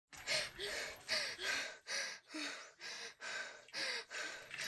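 A woman panting hard and out of breath, quick voiced breaths in and out about two a second.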